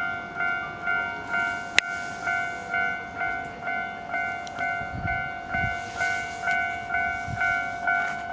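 Japanese railway level-crossing warning bell ringing, an electronic 'kan kan' chime repeated a little over twice a second at an even pace. A sharp click sounds about two seconds in.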